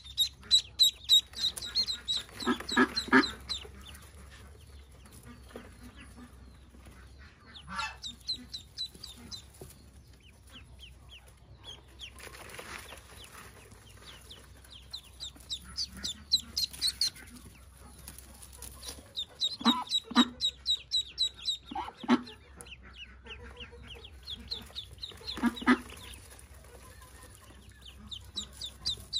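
Newly hatched Pekin ducklings peeping in bouts of rapid, high chirps. A few short, lower calls come from the adult bird brooding them, about three seconds in and three more near the end.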